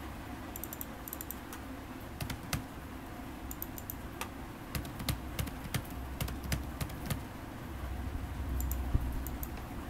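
Typing on a computer keyboard: irregular key clicks in short runs, with pauses between them.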